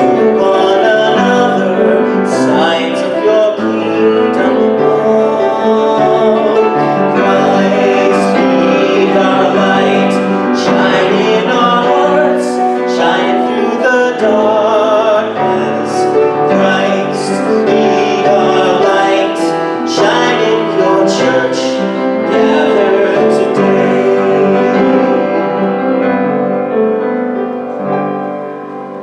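Piano playing with a singing voice, sustained notes with vibrato, the music dying away near the end.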